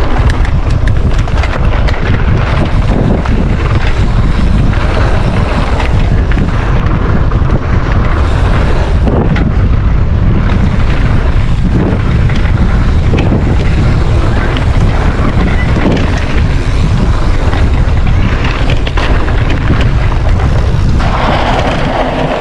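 Wind buffeting the microphone of a mountain biker riding fast down a trail, with knocks and rattles from the bike over the bumps. The wind noise eases a little near the end.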